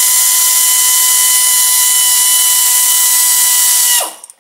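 Air ratchet running continuously as it spins out a transmission pan bolt: a loud, steady whine over a strong hiss, winding down and stopping about four seconds in.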